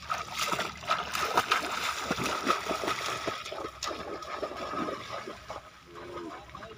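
Running footsteps splashing through shallow standing water, a quick irregular run of splashes that grows fainter near the end as the runner moves away.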